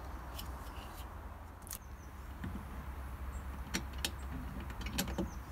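Scattered light clicks, knocks and rattles of a replacement window regulator and motor being handled and worked into the door cavity of a Peugeot 308 CC, over a steady low hum.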